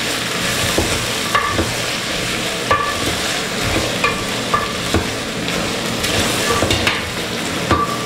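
Peas, carrots and peppers sizzling in oil in a metal pot while a wooden spoon stirs them, knocking irregularly against the pot's side about once or twice a second, some knocks with a short ringing clink.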